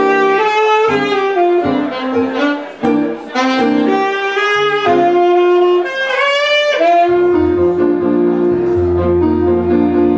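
Instrumental music: a lead melody with sliding, bending notes and a quick rising run, settling about seven seconds in onto a long held chord with a low bass note beneath.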